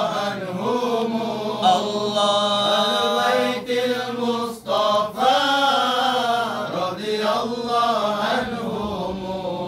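Men chanting Arabic devotional praise verses in a slow, drawn-out melody, holding long notes that bend up and down with brief breaks for breath.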